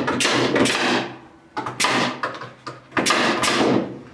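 A wooden siding panel being slid and dragged across a wooden frame: three long scrapes, each starting suddenly and lasting up to about a second, with a few short knocks of wood on wood, over a steady low hum.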